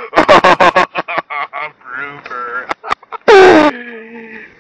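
Quick voices that the recogniser could not make into words, then about three seconds in a loud blaring sound that drops sharply in pitch and settles into a steady lower tone before fading.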